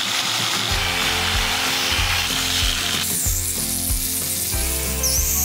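A power tool running with a dense hiss for about three seconds, then fainter scraping, over background music with sustained notes and a steady beat.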